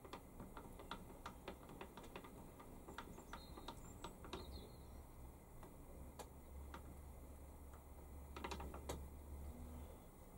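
Faint, irregular clicking and ticking from the Warco WM180 lathe's handwheels and slides being wound by hand, with a closer run of clicks about eight and a half seconds in. A faint low hum sits underneath from about four to nine seconds in.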